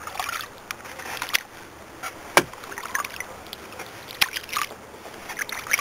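Kayak paddling: water sloshing and dripping off the paddle, with a few sharp knocks. The loudest knock comes about two and a half seconds in.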